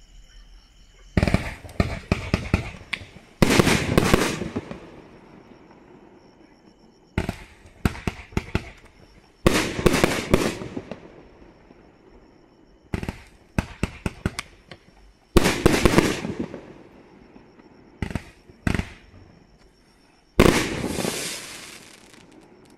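A 32-shot, 500-gram fireworks cake firing in a fan. The shots go off as clusters of quick sharp reports every few seconds, each cluster trailing off, with one big burst near the end.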